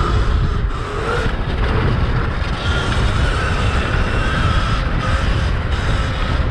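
Sur-Ron electric dirt bike with a 72-volt kit riding along a road: steady heavy wind rumble on the microphone and tyre noise, with a faint whine from the electric motor.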